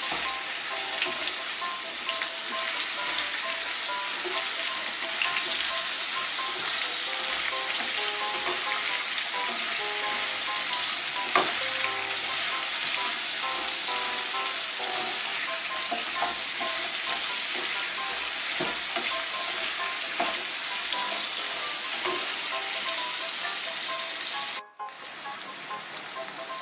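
Spiny gourd (kakrol) slices sizzling steadily as they fry in oil with turmeric and salt, being browned, while a spatula stirs and scrapes the pan now and then. The sound cuts out for an instant near the end and comes back a little quieter.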